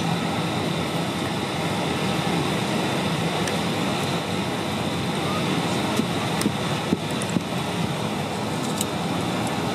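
Steady cabin noise inside an Airbus A320 on the ground before departure: a constant hum and hiss with a thin high whine over it, broken by a few faint clicks in the second half.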